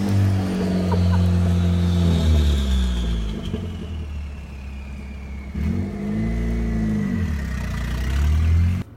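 Car engine running at high revs: the pitch holds and eases down, drops away for a couple of seconds, then rises and falls again in one rev about six seconds in, before cutting off suddenly near the end.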